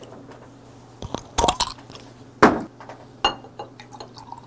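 Glass bottle and glass clinking and knocking as a green soju bottle and a drinking glass are handled: a few sharp clinks, the loudest about two and a half seconds in. Near the end soju begins to pour from the bottle into the glass.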